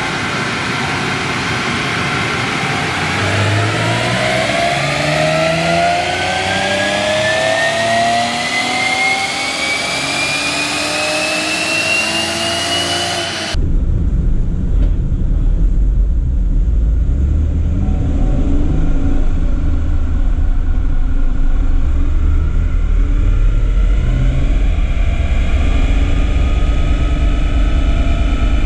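Stock 3.6-litre LLT V6 of a fifth-generation Chevrolet Camaro revving under load on a chassis dyno, its pitch climbing steadily for about ten seconds. About halfway through, the sound changes abruptly to the engine heard from inside the cabin: a deep, steady drone.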